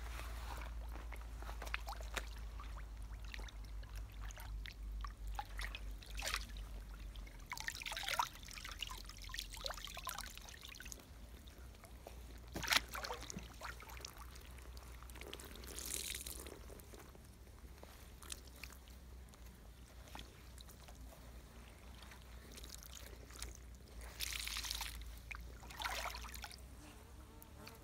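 Water trickling and pouring in a shallow creek as a person in soaked clothing moves in it and handles a wet garment, with a few short splashes spread through.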